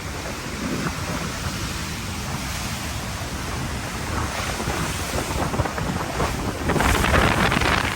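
Typhoon wind gusting and buffeting the microphone in a continuous rumble and hiss, with a stronger gust about seven seconds in.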